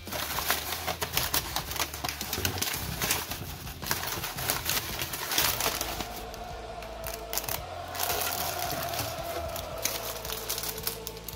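Crumpled kraft packing paper rustling and crinkling as it is pulled out of a cardboard box, followed by the crinkle of a clear plastic bag being handled.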